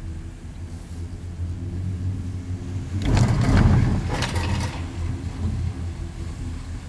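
Steady low hum inside a moving gondola lift cabin. About three seconds in, a louder rattling rush lasts for about a second and a half.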